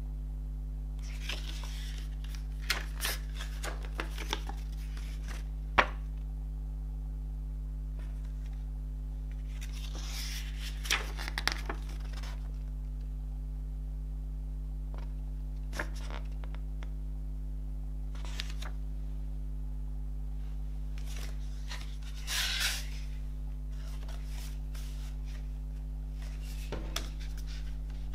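Pages of a paper CD booklet being turned and handled: short, soft paper rustles and a few small clicks every few seconds, the loudest rustle about two-thirds of the way through, over a steady low hum.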